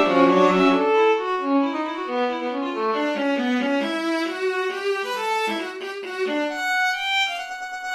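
Orchestral score rendered by notation-software playback, with bowed strings playing quick moving lines in several parts. Near the end the lower parts stop, leaving a few higher held notes.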